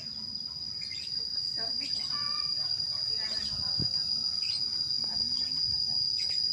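Steady, high-pitched insect trill of crickets that does not let up, with a brief meow-like call about two seconds in.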